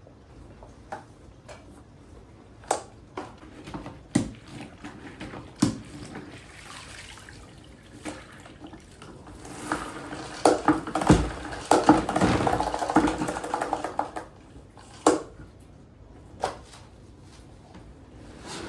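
Kitchen sink: scattered knocks and clinks of dishes or utensils, then water running with clattering for a few seconds past the middle.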